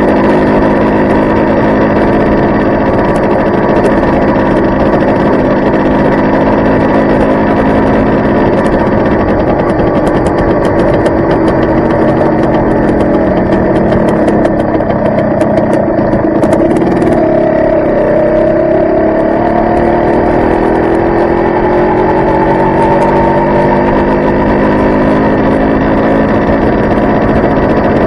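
Yamaha RS100T's 100cc single-cylinder two-stroke engine running as the motorcycle rides along. Its exhaust note dips in pitch around the middle, then climbs steadily as the bike picks up speed again.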